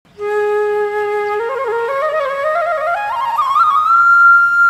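Background music: a solo flute holds a low note, then climbs in a rising stepwise melody and settles on a long high note near the end.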